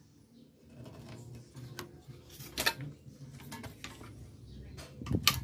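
Clicks and knocks of a CRT TV's circuit board and its metal brackets being handled and set down on a workbench mat: a few scattered taps, two louder, about two and a half seconds and five seconds in.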